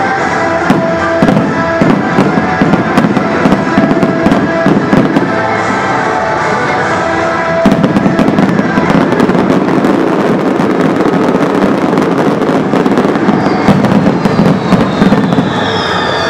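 Fireworks display: a dense run of shell bursts, crackle and pops over music with held notes. About eight seconds in, the bursts thicken into a denser rumble and crackle. Near the end come several whistling fireworks, their pitch falling.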